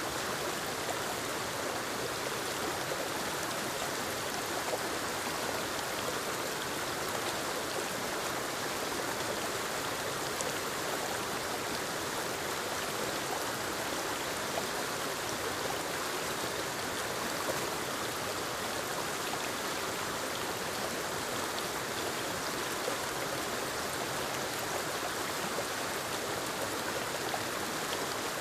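Forest waterfall cascading over rocks into a creek: a steady, unbroken rush of falling and flowing water.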